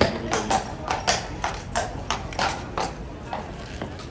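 A horse's hooves clip-clopping on hard ground, about three steps a second, the steps thinning out near the end.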